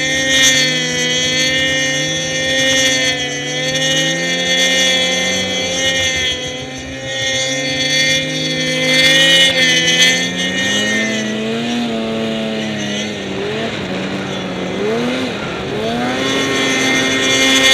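Snowmobile engine running hard through deep powder, its pitch rising and falling with the throttle; in the second half it revs up in several quick rising bursts.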